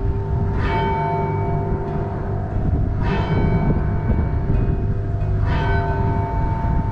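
A large tower bell striking slowly, three strokes about two and a half seconds apart, each ringing on and dying away into the next, over a steady low rumble.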